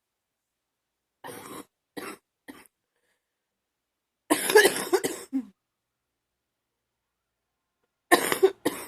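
A woman's chesty, wet cough. Three short coughs come first, then a louder run of coughs about four seconds in, and two more coughs near the end.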